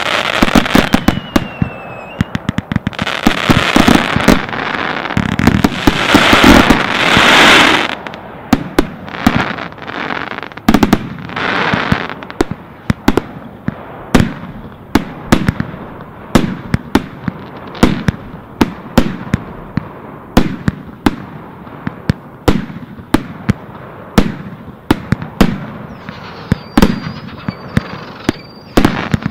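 Consumer fireworks going off in a dense run of sharp bangs as shots burst in the air, with a continuous rushing burst of noise between about three and eight seconds in. After that the bangs come roughly every half second to a second, and a thin steady whistle sounds near the end.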